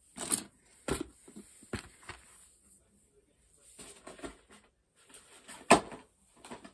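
Sewing supplies being handled and moved about: a few separate knocks and light rustling, with one sharp knock, the loudest, near the end.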